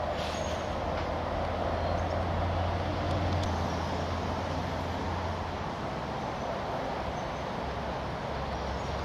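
Steady rumble of passing vehicle traffic, strongest a couple of seconds in and easing off after about five seconds.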